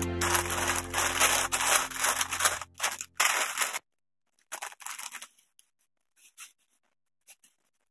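Wrapping paper crinkling and rustling as it is folded and pressed around a gift, cutting off abruptly a little under four seconds in. After that come a few faint crackles of ribbon being handled.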